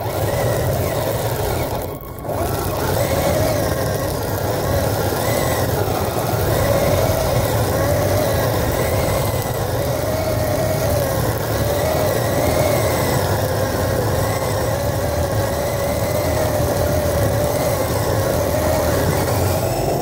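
Kyosho Blizzard SR radio-controlled snowcat driving through snow, heard from a camera mounted on the model. Its electric motor and gearbox give a whine that rises and falls in pitch with the throttle, over a steady low rumble, with a brief dip about two seconds in.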